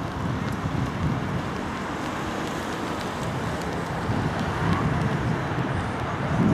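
Wind buffeting the microphone over a steady outdoor background rumble, the gusts growing stronger near the end.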